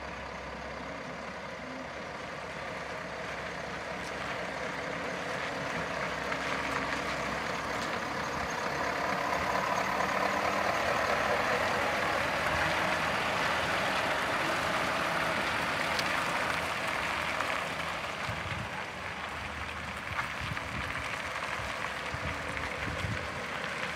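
Scania R520 hooklift truck's V8 diesel engine running as the truck drives slowly past, growing louder to a peak about halfway through and then fading as it moves away.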